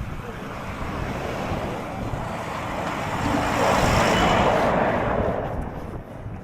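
A vehicle passing on a snowy, slushy road: a rushing tyre hiss that swells to a peak about four seconds in, then fades away.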